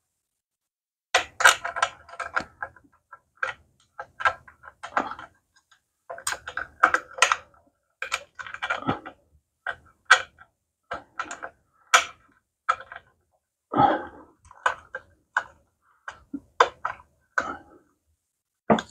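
Irregular clicking and clinking of small metal parts and hand tools being handled, in short clusters with brief pauses, a few of the clicks ringing briefly.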